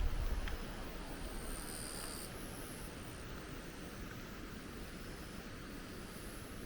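Steady rush of flowing water from the falls and river, an even hiss. A low gust of wind on the microphone fades out in the first half second.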